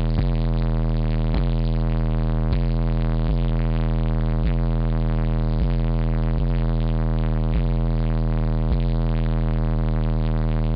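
Very loud deep bass played through two Fi SSD subwoofers on a Powerbass XA-3000D amplifier, heard inside the car's cabin: a steady bass line with a pattern that repeats about once a second. The owner puts it at roughly 145–148 dB by ear.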